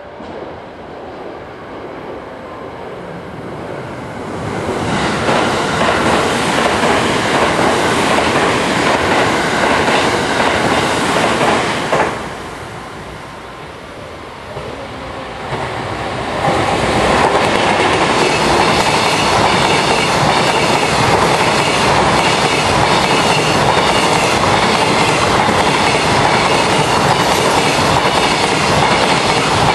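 Freight train coming through, led by an electric locomotive with a long string of container wagons. The noise builds as it nears, breaks off suddenly about twelve seconds in, then the wagons go by, loud and steady, wheels clattering over the rail joints.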